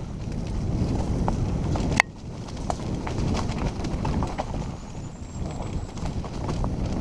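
Mountain bike rolling fast down a rocky, leaf-strewn trail: tyres crunching over stones and dry leaves, with many small rattles and knocks from the bike and one sharp knock about two seconds in, over a low wind rumble on the microphone.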